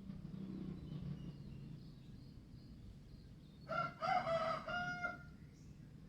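A rooster crowing once, a call of about a second and a half in several linked parts, over faint calls of small wild birds.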